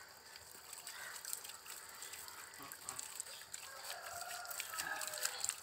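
Water from a garden hose splashing and dripping as a bull is washed. A rooster crows faintly about four seconds in.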